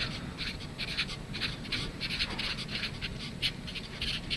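Felt-tip marker writing a word on paper: a quick, irregular run of short strokes, several a second.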